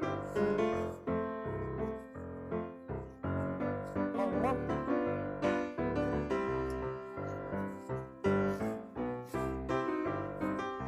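Background music: a light, bouncy silent-film-style piano tune with quick rhythmic notes.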